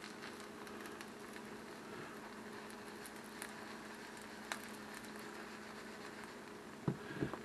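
Cheese frying faintly in a ceramic frying pan, with scattered small crackles over a steady low hum. Near the end, a couple of knocks as the pan is shaken and set back down on the stove burner.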